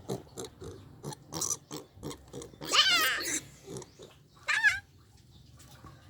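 Piglet making short soft grunts, with two brief squeals: one rising about three seconds in and one falling at about four and a half seconds.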